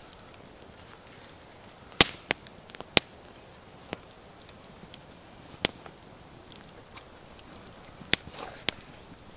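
Wooden bow drill parts (the bow, the spindle and the hearth board) knocking together as they are handled and set up, about seven short, sharp knocks spread unevenly through the span. The loudest comes about two seconds in.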